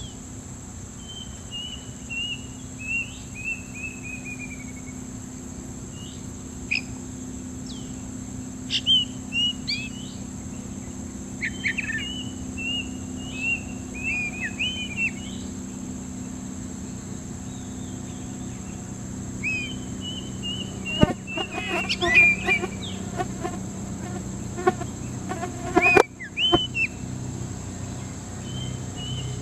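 Oriental magpie-robin calls: short chirps and descending trilled phrases, repeated throughout, over a steady high insect drone. About two-thirds of the way in comes a run of rattling clicks, with two sharp knocks.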